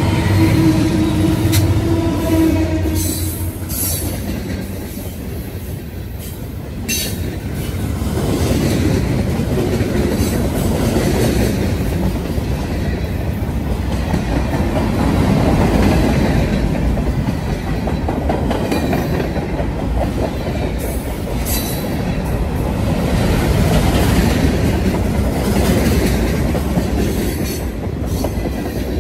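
Freight train passing close by. The diesel locomotives' engines hum steadily at first and fade out about three seconds in. Then tank cars and freight cars roll past, their wheels rumbling and clacking over the rail joints, with brief high-pitched wheel squeals now and then.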